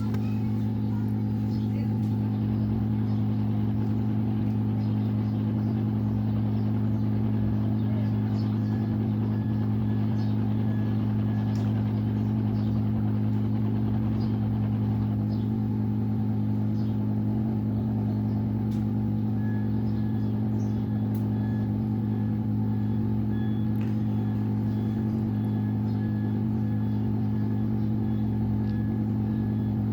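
Hot air rework station running, a steady low hum with a rushing hiss from its blower, and a few faint ticks.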